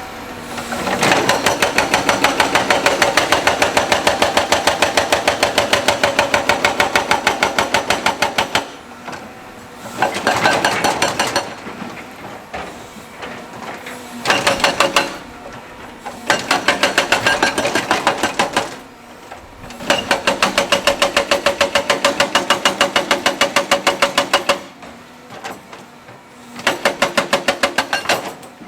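Percussive rock-breaking machinery hammering rapidly on rock, about eight to ten blows a second, in runs of several seconds broken by short pauses.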